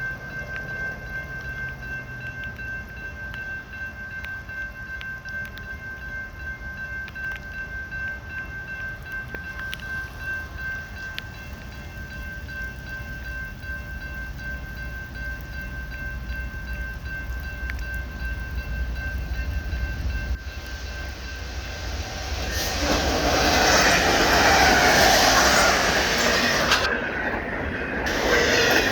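Union Pacific intermodal train, led by SD70ACe diesel-electric locomotives, approaching: a low rumble that slowly grows, with a faint steady high whine, until near the end the train arrives and passes loudly.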